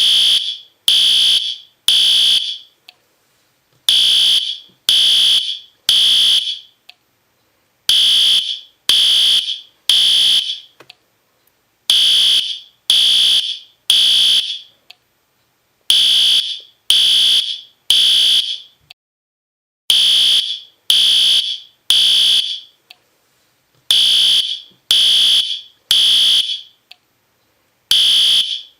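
System Sensor P2R fire alarm horn sounding the temporal three-pulse evacuation pattern: three half-second blasts about a second apart, then a short pause, repeating every four seconds. Very loud.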